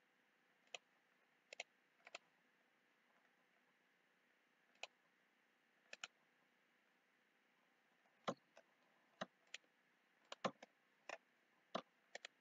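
Computer mouse clicking: scattered single and paired clicks, a few in the first half and more frequent from about two-thirds of the way in, against near silence.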